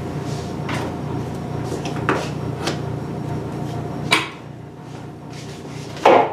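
Pliers pulling staples out of wooden studs: scattered sharp metallic clicks and clinks, the loudest near the end, over a steady low hum that drops away about four seconds in.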